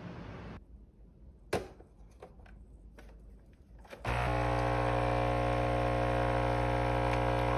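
A sharp click, then about four seconds in a small electric motor switches on and runs at a steady, even hum.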